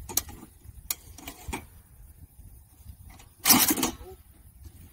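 A few light metallic clicks from a pump-action shotgun being handled, then one loud burst of noise lasting about half a second, about three and a half seconds in.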